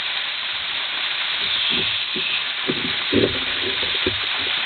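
Waterfall rushing, a steady dense roar of falling water. A few short low sounds break through it in the second half.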